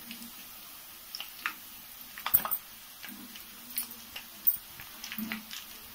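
Scattered light clicks and taps of utensils on a kadai while spice powders go into onions frying in oil, over a faint steady hum.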